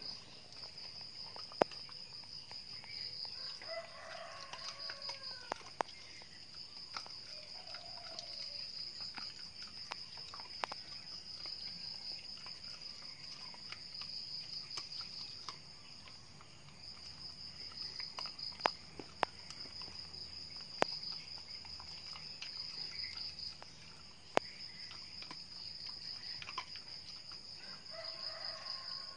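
A rooster crows a few times: about four seconds in, again around eight seconds, and near the end. Underneath runs a steady, pulsing high insect trill. Sharp clicks now and then, the loudest sounds, come from a dog crunching crab shell.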